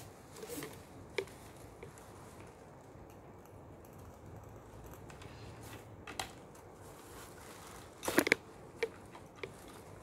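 Red dishes being handled in shredded paper filler: light rustling and a few small clicks, with a quick cluster of sharp knocks of the dishes about eight seconds in.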